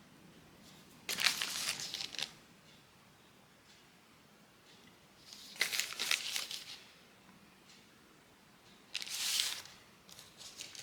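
Crinkling and rustling in three short bursts, with quiet between them.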